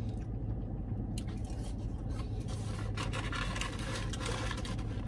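A man chewing french fries and handling a paper fry carton, with soft rustling and scraping sounds, over a steady low hum in the car's cabin.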